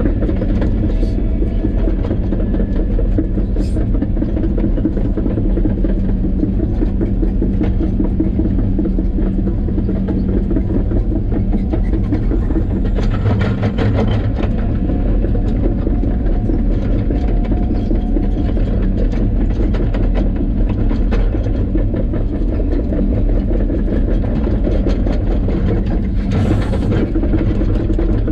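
A running vehicle: a steady low rumble with a constant hum and a fine continuous rattle. A brief hiss comes near the end.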